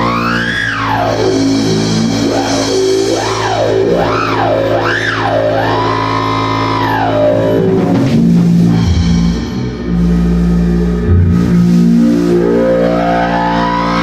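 Korg Monotron Duo analog synthesizer gliding up and down in pitch over a steady low drone: a sweep about a second in, quick up-and-down sweeps, a held high note that drops near the 8-second mark, and a long rising sweep near the end. A drum kit plays along underneath.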